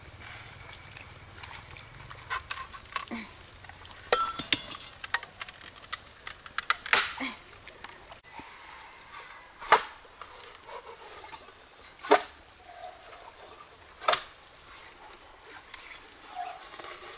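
Green bamboo being split apart by hand, with a run of crackling snaps and one longer crack. This is followed by three sharp knocks about two seconds apart.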